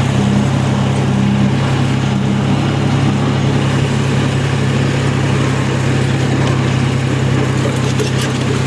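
Tractor engine running steadily while pulling a grain drill through the field.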